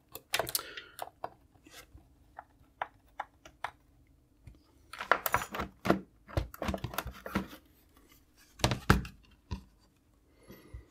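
Plastic case of an Amiga A600 being handled, pressed and opened: scattered clicks and knocks, with bursts of rattling and scraping about five, seven and nine seconds in.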